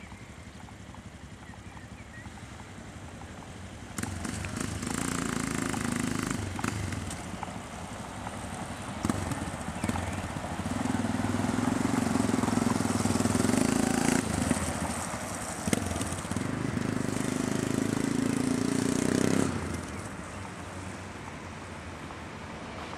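Yamaha MT-03's single-cylinder engine through a Takkoni aftermarket silencer, idling, then pulling away hard about four seconds in. It accelerates in several pulls with short dips at the gear changes and drops away as the bike rides off near the end.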